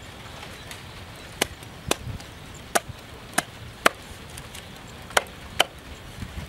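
Cleaver chopping a raw chicken on a wooden chopping block: seven sharp strikes at uneven intervals, beginning about a second and a half in.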